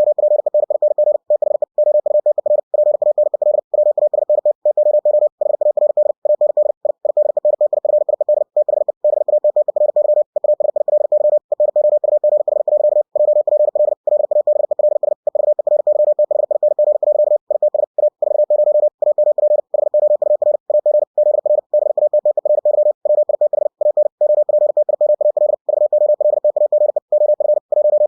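Computer-generated Morse code at 60 words per minute: a single steady beep keyed very rapidly into dots and dashes, with short breaks between words.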